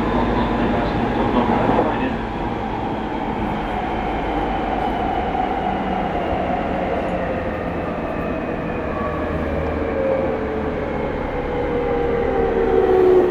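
Running noise inside a Rinkai Line 70-000 series train car: a steady rumble, with the traction motors' whine sliding slowly down in pitch as the train loses speed.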